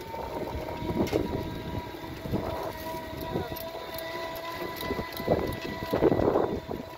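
Motor vehicle running steadily with a high, even whine, over rumbling noise that swells louder about two-thirds of the way in.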